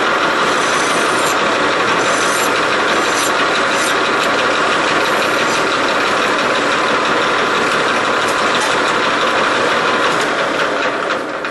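Metal lathe running with its chuck spinning a small turned part, a hand file drawn across the spinning part in the first few seconds. The lathe is switched off near the end and the noise falls away.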